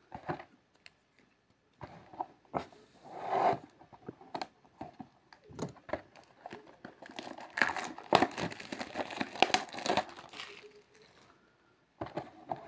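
A cardboard hockey-card blaster box being torn open by hand and the packs pulled out: irregular tearing and rustling with sharp clicks, busiest from about seven to ten seconds in, then a short lull near the end.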